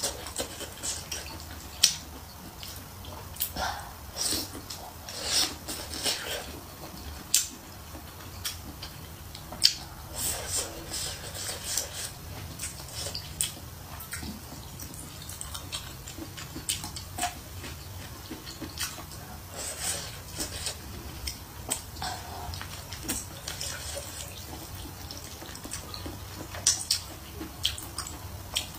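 Close-miked eating of saucy hot pot tofu skin and rice: wet chewing, slurping and mouth smacks, with irregular sharp clicks.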